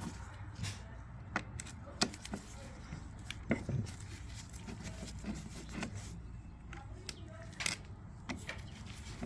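Scattered light clicks and knocks of hand tools and small metal parts being handled, at irregular intervals over a steady low hum.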